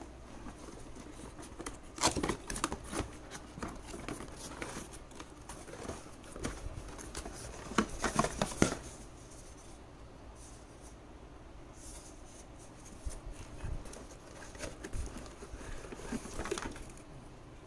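Cardboard box and plastic wrapping being opened and unpacked by hand: rustling, crinkling and light knocks in bursts, about two seconds in, around eight seconds in, and again near the end.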